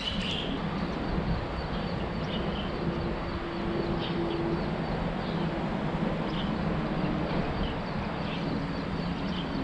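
Steady rumble of traffic on a highway viaduct overhead, with scattered short, high bird chirps.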